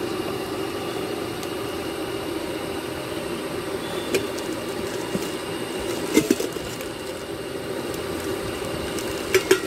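Stainless steel cooking pots being handled in their plastic wrapping, giving a few short sharp knocks about four and six seconds in and a quick pair near the end, over a steady low background drone.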